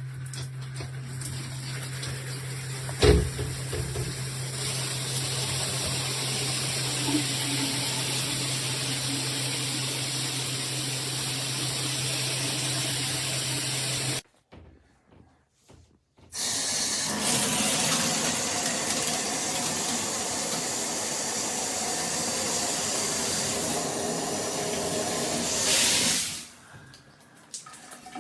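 Water running from a 6-inch rain shower head, a steady spraying hiss. A low hum sits under it for the first half, with a single sharp knock about three seconds in. The sound drops out for about two seconds midway, resumes, then fades away near the end.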